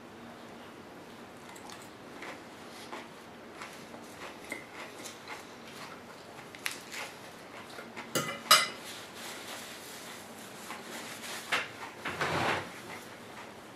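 Metal fork clinking and scraping against a ceramic salad bowl while spearing lettuce, a scatter of light clicks with two sharper clinks a little past halfway and a louder clatter near the end.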